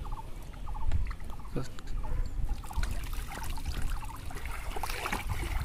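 Water sloshing and trickling as a bamboo polo fish trap is worked in shallow river water and lifted out, with a denser patter of splashing and dripping through its slats in the second half.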